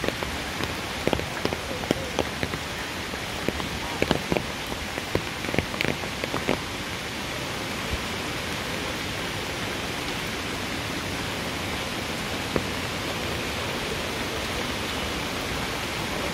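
Steady rain falling on a wet road. It is dotted with sharp close taps of raindrops during the first several seconds.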